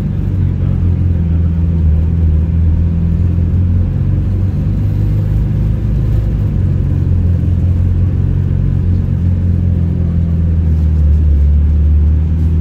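City bus engine running, heard from inside the bus: a steady low drone that grows a little deeper and louder near the end.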